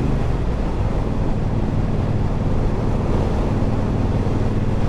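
Triumph Bobber's 1200 cc parallel-twin engine running under way, mixed with heavy wind noise on the microphone. The engine's steady tone blurs into the wind noise about half a second in.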